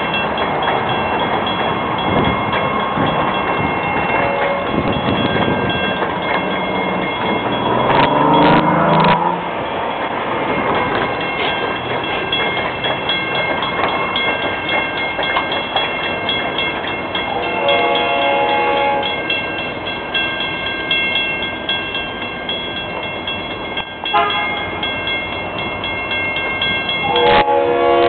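Diesel freight locomotive horn sounding several chord blasts as the train approaches a grade crossing, the loudest about eight seconds in and near the end. Under it a crossing signal bell rings steadily.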